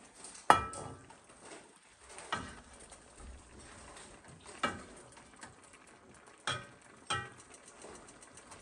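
Spatula clinking against a stainless steel wok and a ceramic bowl as stir fry is scooped out and served: five sharp, briefly ringing clinks a second or two apart, the first the loudest.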